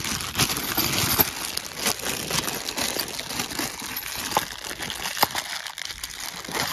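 Plastic bags and plastic hardware packaging crinkling and rustling as they are handled and rummaged through, with small clicks and knocks of hard plastic.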